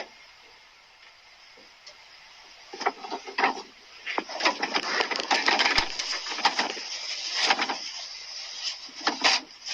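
Wet, crackling, sputtering spurts of diarrhea and gas, coming in several irregular bursts from about three seconds in, after a quiet start.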